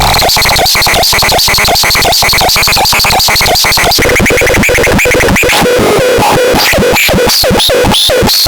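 Electronic music: a fast, chopped synthesizer pattern over heavy bass. About two-thirds of the way in the bass drops out and the chopped notes slide up and down in pitch.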